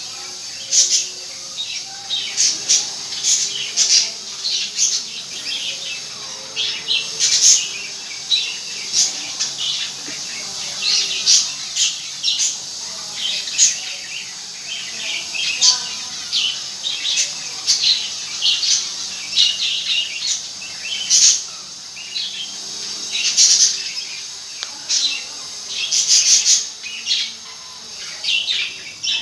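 Small birds chirping over and over: a continuous run of short, high chirps, several a second.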